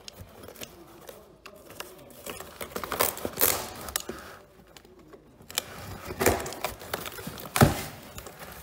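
Cardboard shipping box being handled and opened on a wooden bench: irregular rustles, scrapes and clicks of cardboard, with one louder knock near the end.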